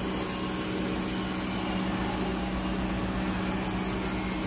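Lincoln Electric Vantage 500 diesel engine-driven welder running steadily with an even, unchanging hum.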